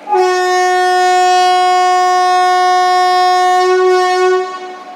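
WAP4 electric locomotive's horn sounding one long steady blast, dying away near the end.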